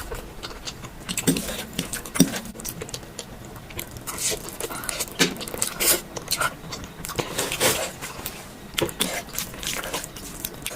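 Close-miked eating sounds: chewing and mouth noises with irregular wet clicks and crackles, a few stronger bites among them.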